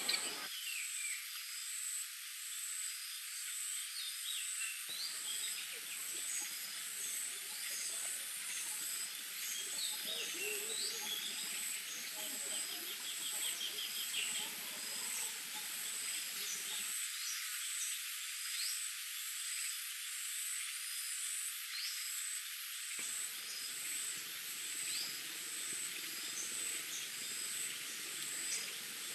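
Forest ambience: a steady, high-pitched, pulsing insect chorus with scattered short chirping calls over it, and a quick trill about a third of the way in.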